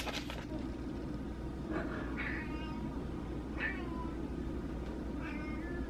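House cats meowing: three drawn-out calls a second or so apart, the middle one sliding down in pitch at its end.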